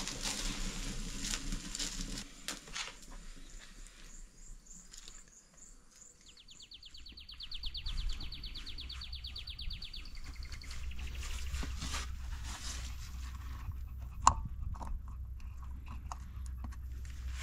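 Wood fire crackling on a barbecue grill, then a fast, even train of insect chirps. After that, wind rumbling on the microphone with sharp metal clicks of hand tools working at an ATV's rear CV axle boot; one click about two thirds of the way in is the loudest sound.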